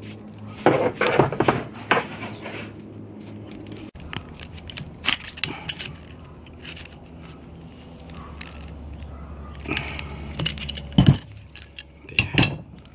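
Scattered clicks and clinks of metal hose fittings and hand tools being handled while a braided stainless hose end is fitted and turned, with a cluster of sharper clinks about a second in and again near the end.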